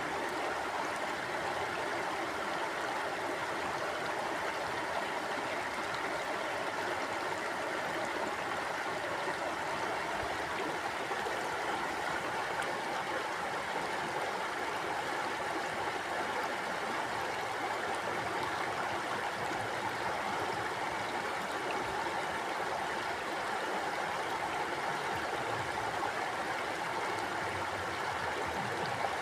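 Stream water flowing and burbling over stones in a steady rush.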